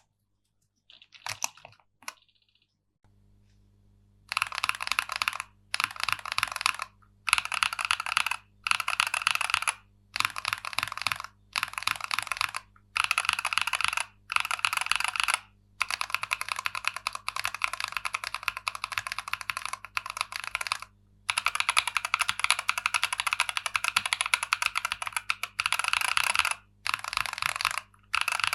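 Mechanical keyboard with Holy Panda tactile switches being typed on in quick bursts of about a second each, with short pauses between. The bursts start after a few near-silent seconds broken only by a couple of clicks.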